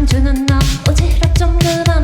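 A pop song performed live, with a sung melody held over a steady drum beat and bass.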